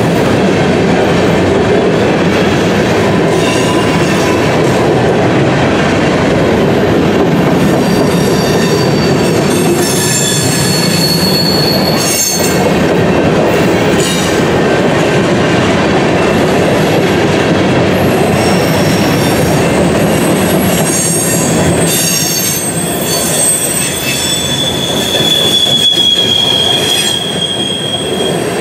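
Empty covered hopper cars of a BNSF grain unit train rolling past at speed: a loud, steady rumble of steel wheels on rail. High-pitched squeals from the running gear come and go, one held for a few seconds near the end.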